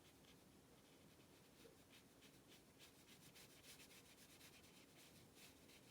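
Near silence with faint, quick scratchy strokes of a brush rubbing on paper.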